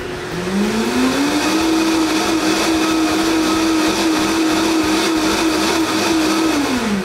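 Vitamix blender motor running, rising in pitch over the first second or so as it speeds up, holding a steady whine, then dropping as it winds down at the end. It is blending leftover tomato-cashew sauce solids with added water into a thin puree.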